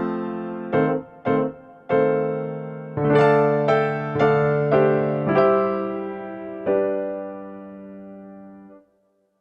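Background music on electric piano: a simple melody of struck notes that ends on a held note fading out near the end, followed by silence.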